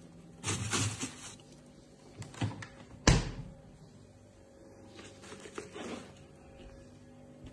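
Household handling noises: brief rustling and knocking, with one sharp thud about three seconds in, like a door or lid being shut, then softer rustles.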